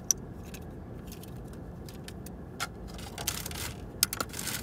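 Handling noise from small objects: a sharp click just after the start, scattered light clicks and taps, a short rustle about three seconds in and a couple more clicks near the end, over a steady low background rumble.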